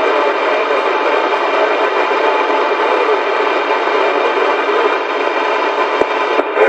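Steady loud hiss of static, with a single sharp click about six seconds in.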